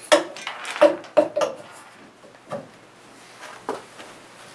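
A muffler being pushed onto an exhaust pipe by hand: a quick run of knocks and clunks over the first second and a half, then a couple of fainter taps.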